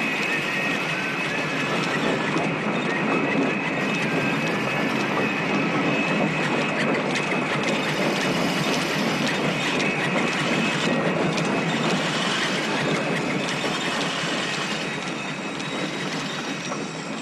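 Woodworking shop machinery, including a wood lathe, running steadily: a dense mechanical din with a steady high whine, easing off slightly near the end.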